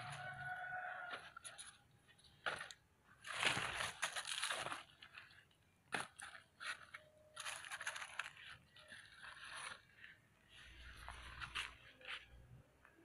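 Irregular crunching and rustling of dry leaf litter and stiff plant leaves, in short noisy bursts, the longest and loudest a few seconds in.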